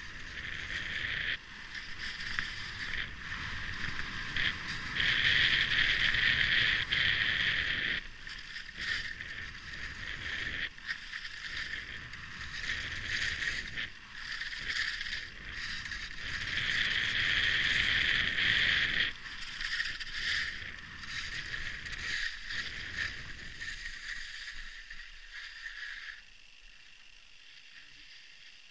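Skis hissing and scraping over snow on a fast downhill run, in waves that swell and fade with the turns, with wind rumbling on the microphone. The sound dies down near the end as the skier comes to a stop.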